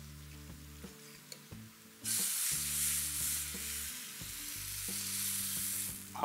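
Cumin seeds fried in hot oil sizzling as the tempering is tipped over a cooked okra and onion masala: a sudden loud sizzle starts about two seconds in, eases, and stops near the end. Soft background music runs underneath.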